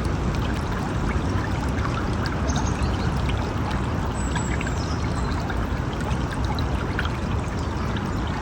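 River water flowing steadily, with many small splashes and trickles.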